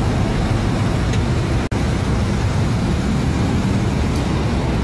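Sport motorcycle engine running steadily, with a low rumble, amid street traffic noise; the sound cuts out for an instant a little under two seconds in.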